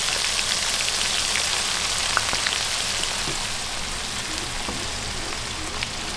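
Freshly added chopped onions sizzling in hot oil, with scattered crackles. The sizzle fades slowly as the onions are stirred with a wooden spatula.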